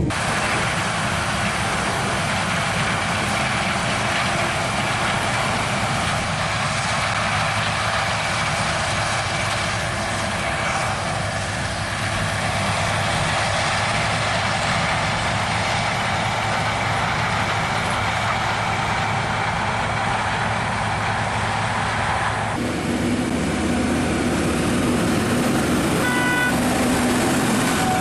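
Heavy diesel farm machinery running steadily, with an abrupt change in the sound about 22 seconds in and a few short beeps near the end.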